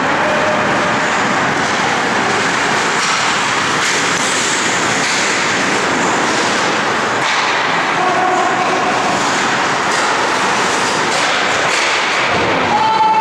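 Steady din of an ice hockey game: skate blades carving and scraping the ice and sticks clattering, with a couple of short voice calls about eight seconds in and near the end.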